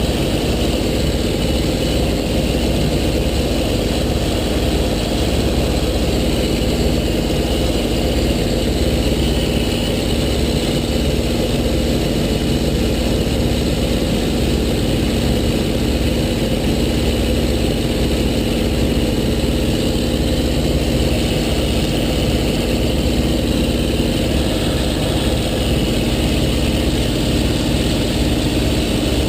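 Small electric RC warbird's motor and propeller running at a steady speed with a constant whine, over a low rumble of wind buffeting the microphone.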